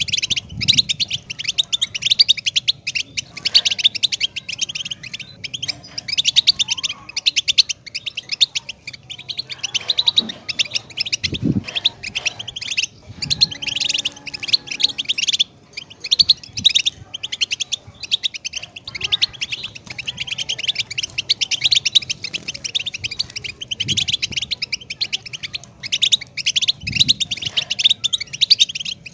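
European goldfinch singing a fast, unbroken twittering song of rapid high chirps, with only brief pauses. A few faint low thumps sound under it.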